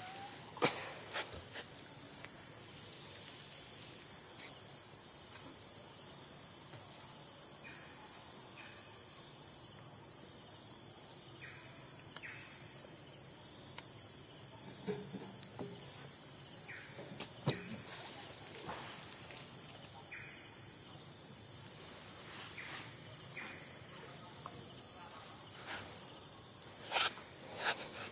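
Steady, high-pitched drone of a forest insect chorus. A few brief sharp knocks stand out: one about a second in, one midway and two close together near the end.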